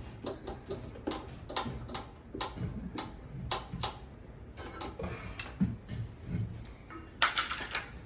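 Hard objects knocking and clinking at irregular intervals, with a louder burst of hissing noise about seven seconds in.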